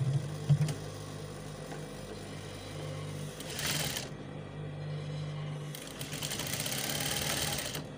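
Industrial sewing machine stitching crinoline onto a peplum lining in two runs, a short one about three and a half seconds in and a longer one near the end, over a steady motor hum. Two sharp knocks come right at the start.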